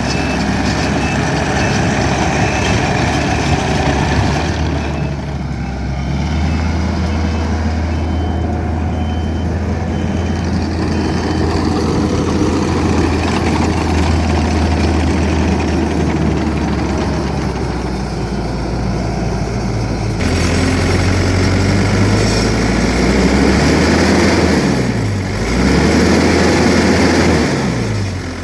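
Takeuchi TL10 tracked loader's four-cylinder turbo diesel running under work, with its backup alarm beeping steadily early on and again for several seconds while it reverses. Near the end the engine's pitch dips and recovers twice.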